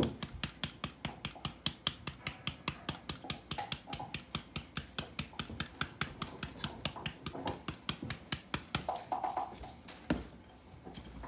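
A spice shaker of Cajun blackening seasoning being shaken over fish fillets: a fast, even clicking of about four to five shakes a second, which stops about nine seconds in. A single louder knock comes near the end.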